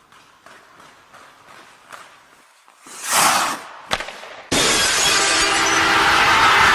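Intro sound effects: faint ticking, a loud whooshing swell, a sharp crack, then about halfway through a sudden loud, sustained crash-like noise, like glass shattering.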